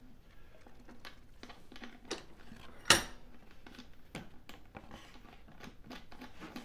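Light clicks and taps of a small spigot being fitted through the slot of an MDF board and screwed into a flange nut, with one sharper click about three seconds in.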